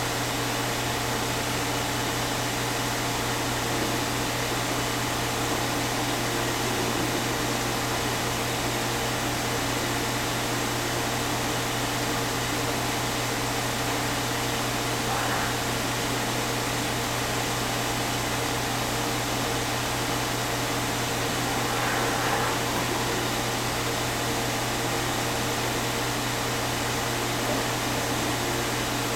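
Steady electrical hum with an even hiss, as from running mains-powered equipment, with two faint brief sounds about halfway through and again about three-quarters of the way in.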